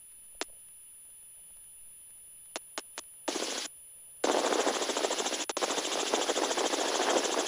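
Helicopter intercom: faint hiss with a few sharp clicks of a mic being keyed, then a short burst of cabin noise. From about four seconds in, the helicopter's rotor and engine noise comes loudly and steadily through the keyed headset mic, a dense noise with rapid pulsing.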